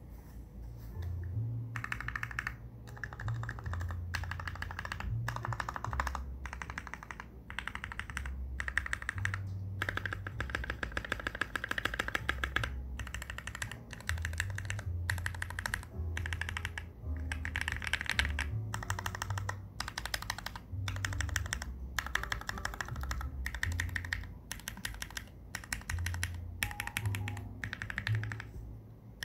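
Typing on a NovelKeys NK65 Entry Edition mechanical keyboard: Gateron Ink Black v2 linear switches lubed with Krytox 205g0, on an aluminium plate in a polycarbonate case, with PBT keycaps. The keystrokes come in rapid bursts of a second or two, with short pauses between them.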